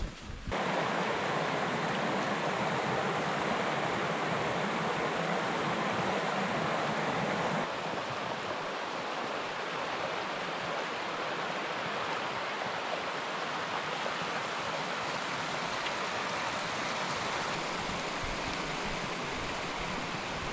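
Mountain stream rushing over rocks: a steady hiss of flowing water, dropping slightly in level about eight seconds in.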